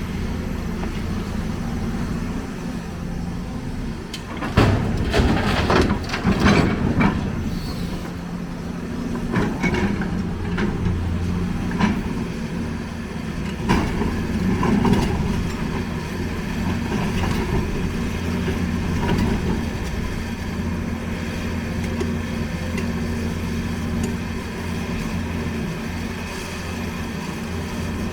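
A large excavator's diesel engine running steadily. A burst of clanking and clattering comes about five to seven seconds in, with a few more knocks later, as of the bucket working and loading a dump truck.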